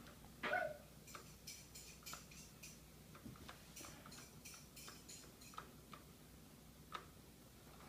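A kitten meows once about half a second in, then faint, irregular ticks and scratches as the kittens bat at a fabric-covered cat toy with a wand on the carpet.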